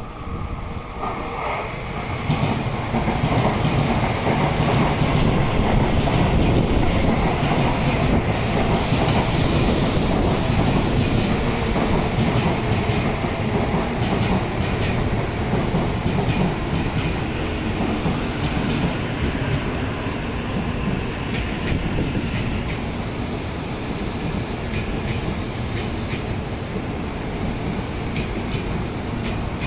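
N700A Shinkansen train running into the platform and braking to a stop. A loud rumble of wheels on rail builds about two seconds in and then fades slowly as the train slows, with scattered sharp clicks.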